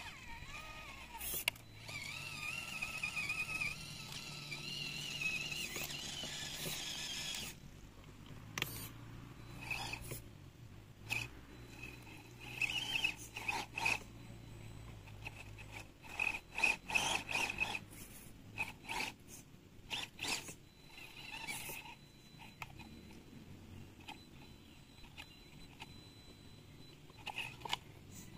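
A small electric motor whines for several seconds at a slightly wavering speed, then runs in short bursts among sharp plastic clicks and scrapes of parts being handled.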